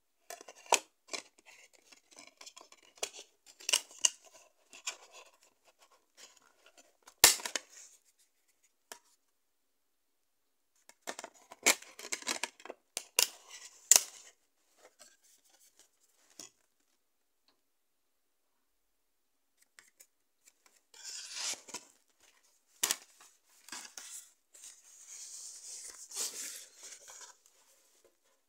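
DVD discs being handled and pressed onto the hubs of clear plastic trays in a cardboard digipak: scattered sharp plastic clicks and clatter, the loudest about seven seconds in. Near the end come longer stretches of rustling and scraping as the case is handled.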